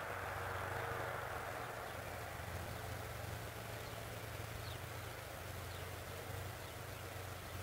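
Wind rustling through a wheat field, the rustle easing a little after the first couple of seconds, over a steady low hum of distant road traffic. A few faint, short, high bird chirps.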